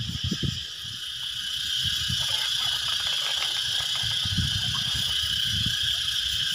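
Steady high-pitched insect drone over irregular low rumbles and thuds as a bamboo-framed lift net is hauled up through the water, stirring and splashing it.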